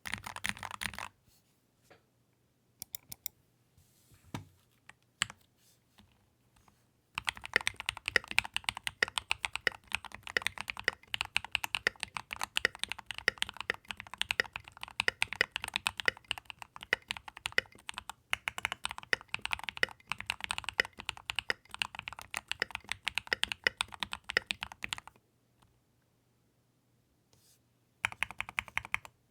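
Fast typing on a Keychron mechanical keyboard: a steady run of key clacks, with a brief burst at the start, a few scattered presses, then continuous typing that stops for a few seconds before starting again near the end.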